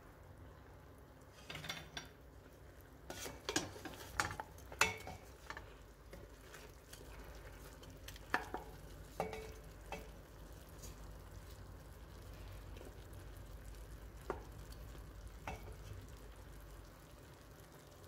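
A wooden spoon stirring chicken pieces in a stainless steel pressure-cooker pot, knocking and scraping against the pot irregularly, most often in the first few seconds. Under it, the chicken sizzles faintly as it browns in its own fat.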